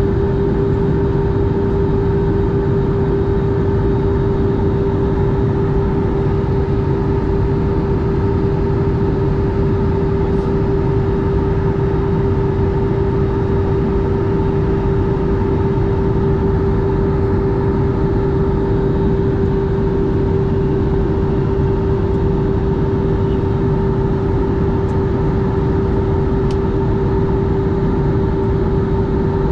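Steady cabin noise of a jet airliner in cruise, heard from a window seat beside the wing-mounted turbofan: an even rush of engine and airflow noise with a constant hum running through it.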